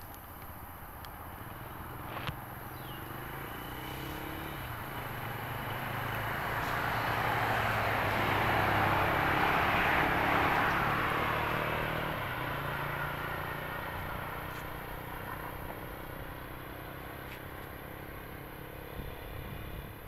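A motor vehicle driving past on the road: engine and tyre noise swelling slowly to a peak about ten seconds in, then fading away.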